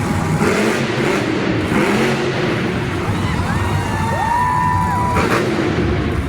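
Monster truck engines revving under loud arena music and crowd noise; an engine note climbs and holds about three and a half seconds in.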